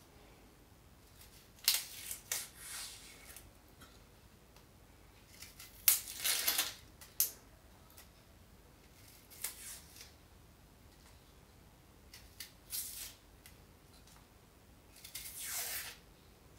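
Small kitchen knife peeling the dry papery skin off an onion: short scraping, rustling bursts every few seconds, the longest about six seconds in and another near the end.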